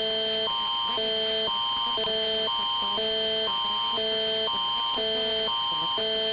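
Canadian Alert Ready attention signal: a low chord and a higher chord alternating about every half second over one steady high tone, cutting off suddenly near the end. It is the tone that opens a national public alert, here a test.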